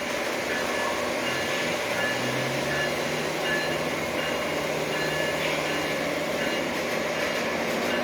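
O gauge model train running steadily on 027 three-rail tubular track: the even whir and rumble of its electric motor and wheels on the rails, with a faint high tone that comes and goes.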